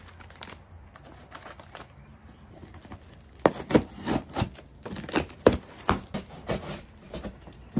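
Scissors blade slicing through packing tape on a cardboard box: a run of sharp scraping rips, about two a second, starting about three and a half seconds in, with cardboard flaps rustling near the end. Before that there are only faint small rustles.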